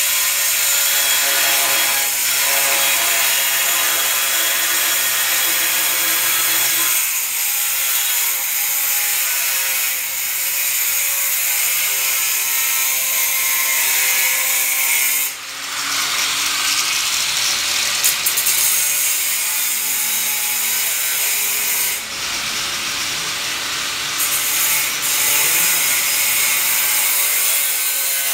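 Power tool running almost without pause, a steady high hiss with tones that shift in pitch a few times.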